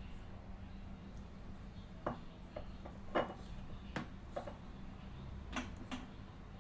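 A handful of light clicks and taps of a plastic measuring cup and sauce bottle being handled against a ceramic bowl, about seven in all, the sharpest a little past three seconds in, over a steady low hum.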